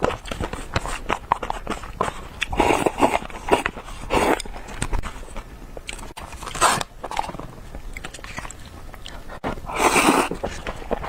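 Close-miked eating of jjajangmyeon cup noodles: wet chewing with many small smacking clicks, broken by four short, louder noisy slurps of noodles.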